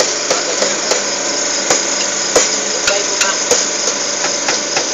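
Sticks striking a makeshift drum kit of buckets and metal pots in an uneven rhythm, about three sharp hits a second, over a loud steady mechanical hum.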